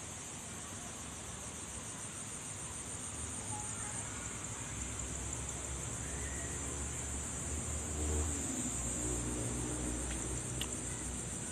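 Steady, high-pitched insect chorus of crickets or cicadas. A low rumble builds in the second half and is loudest about eight seconds in.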